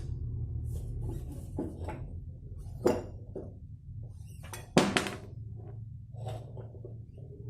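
Scattered metallic clinks and knocks over a low steady hum, with two sharper knocks about three and five seconds in, as the front wheel of an old Royal Enfield is worked out of the fork.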